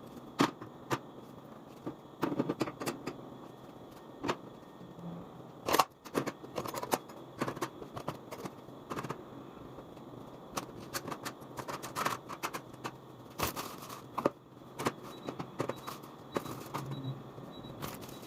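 Irregular knocks, clicks and light rattles of objects being handled and set down, from cleaning out a fridge. Faint high beeps repeat evenly in the last few seconds.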